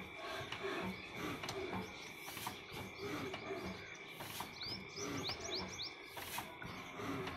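Steady mechanical hum with a slow, regular knock about every two seconds, and a small bird's quick run of rising chirps around five seconds in.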